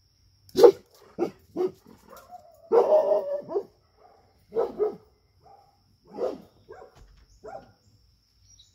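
Dog barking repeatedly while chasing deer off the yard: a sharp bark about half a second in, then about eight more barks at irregular intervals, with a longer run of barks around the middle.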